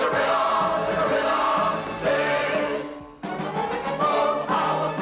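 A mixed choir of men and women singing in harmony. The singing dips to a brief break about three seconds in, then comes back in.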